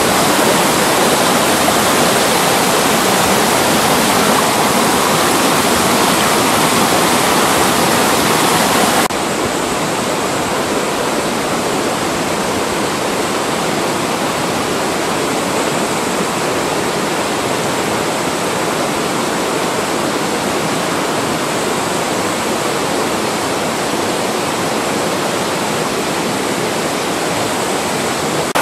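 Mountain valley stream rushing over rocks in a steady roar of water. About nine seconds in, the sound cuts abruptly to a somewhat quieter, duller stretch of running water.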